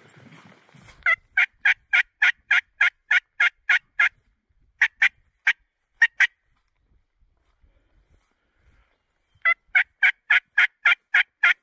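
Hen turkey yelps blown on a mouth call to draw in a gobbler. First comes a fast, even run of about a dozen loud yelps, then a few slower ones, then a pause of about three seconds, and near the end another fast run.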